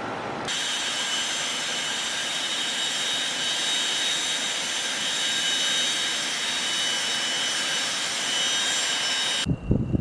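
Textron Scorpion's twin turbofan jet engines running on the ground: a steady high-pitched whine over a rushing hiss. It starts abruptly about half a second in and cuts off shortly before the end.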